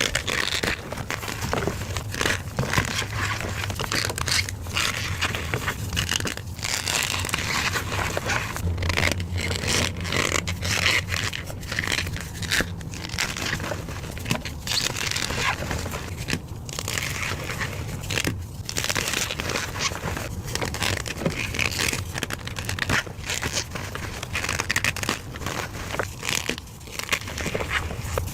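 Blocks of gym chalk being crushed and crumbled, a continuous dense dry crunching and crackling made of many small sharp cracks.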